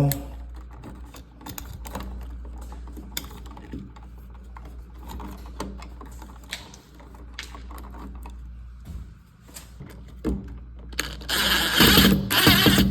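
Screws being driven to fasten a single-pole light switch into the wall's electrical box: scattered small clicks and ticks of metal and tool handling, with a louder rasping burst near the end.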